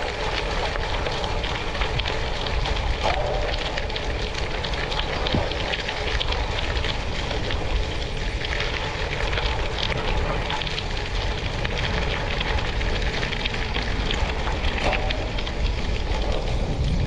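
Tyres rolling over a gravel road: a steady rumble full of small crackles and pops from stones under the tread.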